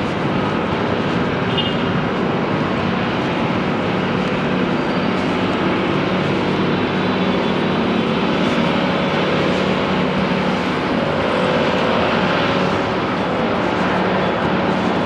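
Steady city street noise: traffic running by, with a constant low hum underneath.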